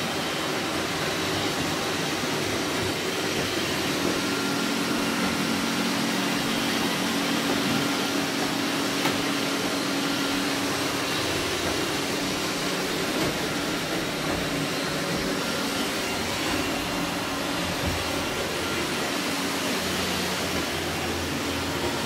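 Several robot vacuum cleaners, among them an iRobot Roomba and a Samsung PowerBot, running at once: a steady whir of suction fans and brushes, with a low hum that grows stronger for several seconds partway through.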